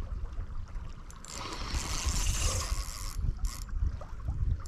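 Uneven low rumble of wind on the microphone over the sound of creek water.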